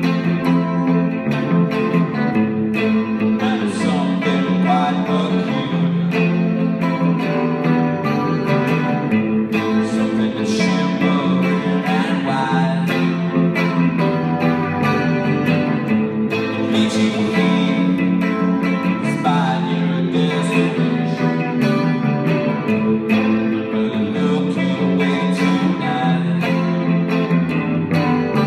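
A small band playing live: a Telecaster-style electric guitar and an electric bass guitar playing a song together, with a man singing into the microphone at times.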